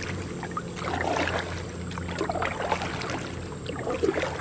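Double-bladed paddle strokes in calm water: the blades dip and splash, and water drips and trickles off them.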